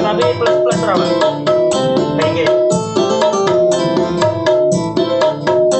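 Music played through an 8-inch speaker cabinet with a round horn tweeter during a sound test. The music is busy, with many quick percussive notes over sustained pitched notes at a steady, loud level.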